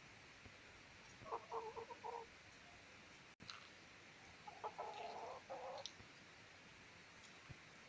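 A rooster calling twice, each call about a second long and broken into short pulses.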